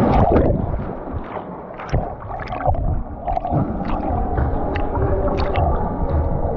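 A dog plunging into a swimming pool with a loud splash, then swimming, with water sloshing and splashing close around it. The splash fades over the first couple of seconds and gives way to short, irregular splashes from its paddling.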